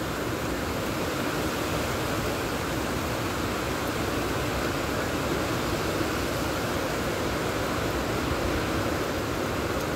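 Hurricane wind and rain: a steady rushing noise of strong wind through large trees, with no let-up.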